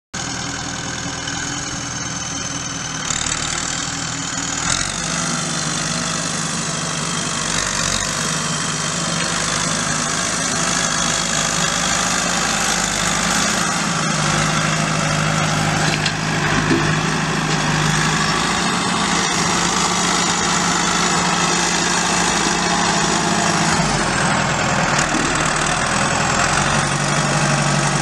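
New Holland TS110 tractor's 5.0 L four-cylinder turbo diesel engine running, its pitch shifting up and down a few times.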